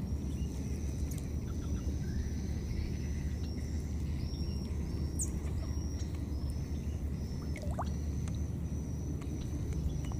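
Outdoor ambience at a pond edge: a steady low rumble under a thin, continuous high-pitched tone. A few brief chirps stand out, a quick rising one about halfway through and a falling one near the end.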